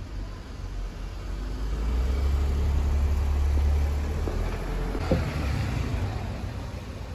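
A car driving past, its low engine and tyre rumble swelling over a couple of seconds and fading away, with a short click about five seconds in.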